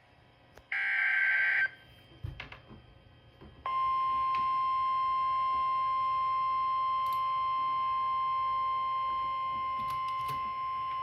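Emergency Alert System SAME header: a one-second burst of warbling data tones, the last of the header's three repeats. About three seconds in, the NOAA Weather Radio 1050 Hz warning alarm begins: a single steady tone that holds and signals a warning being issued, here a tornado warning.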